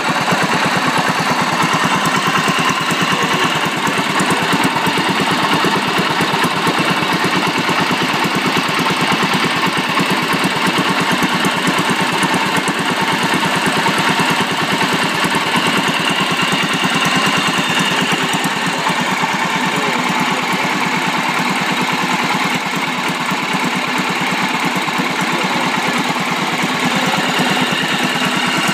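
Antique 1930s Lauson single-cylinder boat engine running steadily, a rapid, even stream of firing beats.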